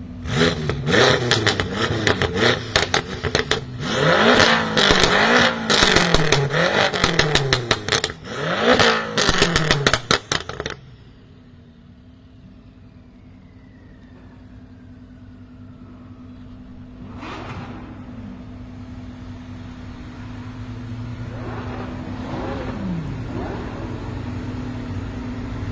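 BMW M5 F10's twin-turbo V8, breathing through catless downpipes, revved hard several times in quick succession, each rev followed by a rapid string of exhaust pops and crackles. About ten seconds in it drops back to a steady idle, with two softer blips of revs later on.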